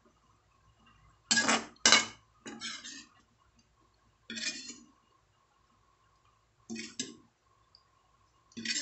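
A spoon scraping and clinking against an aluminium cooking pan, scooping out the last of the sauce: about six short scrapes spaced through several seconds.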